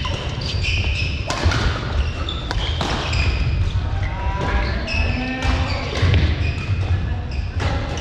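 Badminton doubles rally in a gym: sharp racket strikes on the shuttlecock every second or two, with shoes squeaking briefly on the court floor and footfalls in between.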